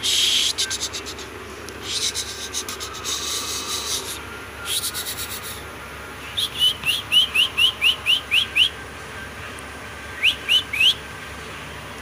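A cockatiel whistling a quick run of about nine short rising chirps, then three more near the end. Earlier there are a few bursts of rapid clicking and rustling.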